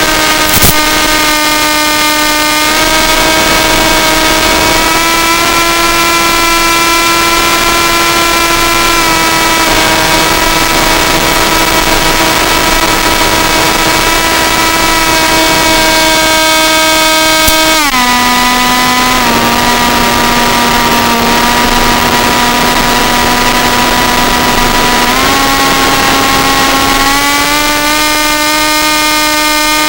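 Small propeller motor of a flying machine running with a steady whine. Its pitch shifts in small steps, drops noticeably about 18 seconds in, and climbs back near the end as the throttle changes.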